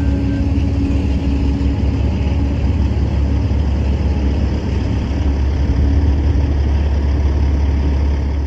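A steady, loud, low engine-like rumble from heavy machinery, with a steady tone over it that fades out in the first couple of seconds.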